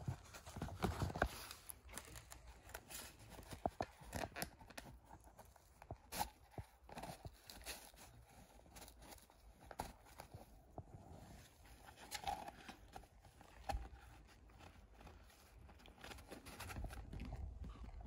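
A Pomeranian chewing and tearing at an empty cardboard kitchen-roll tube: irregular small crunches and tearing crackles, strongest in the first second or so.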